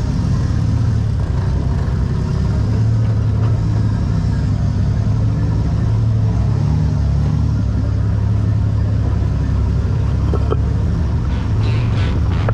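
An off-road vehicle's engine running steadily with a low, even drone.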